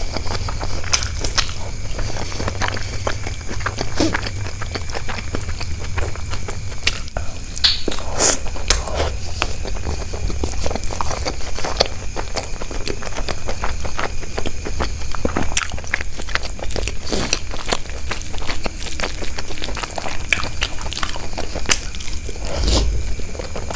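Close-miked chewing and biting of food, with many irregular crisp clicks and crunches, over a steady low hum.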